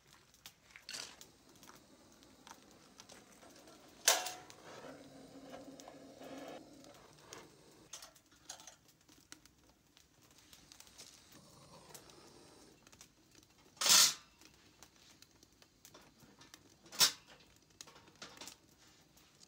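Metal clanks and knocks from handmade steel wood-burning camp stoves being handled as their doors and lids are opened and shut and wood is fed in: a sharp knock about four seconds in followed by a brief metallic ring, the loudest clank a little past the middle, another shortly after, and small clicks between.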